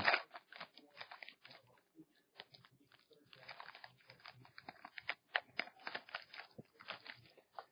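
Foil trading-card pack wrapper crinkling as it is torn open and peeled off the cards, in faint, irregular crackles.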